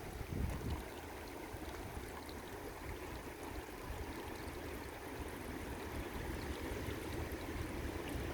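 Steady rain falling in a storm, an even hiss of water, with wind buffeting the microphone in the first second or so.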